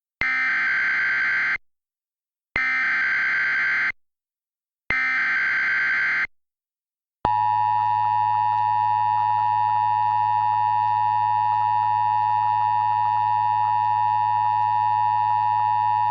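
Emergency Alert System SAME header: three short, buzzy data bursts about a second apart, then about seven seconds in the steady two-tone EAS attention signal starts and holds.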